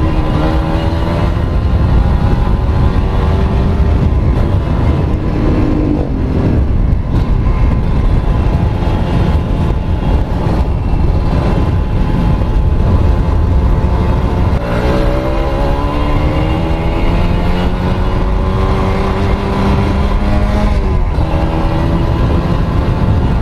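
Kawasaki Ninja RR 150 cc two-stroke single-cylinder engine, fitted with a Mikuni VM28 carburettor, accelerating under load. The pitch climbs steadily and drops back at each gear change, about three times.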